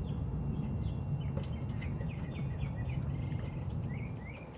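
Small birds chirping repeatedly over a steady low rumble; the rumble drops away near the end.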